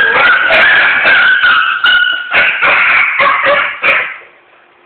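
Beagles yelping and baying excitedly, loud and overlapping, with drawn-out pitched cries; the noise stops abruptly about four seconds in.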